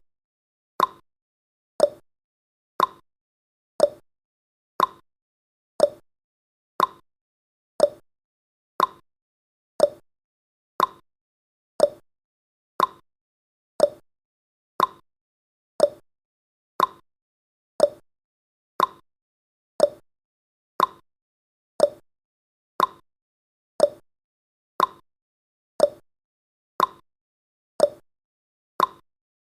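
Countdown timer sound effect: a short, sharp tick once every second, evenly spaced, with silence between ticks.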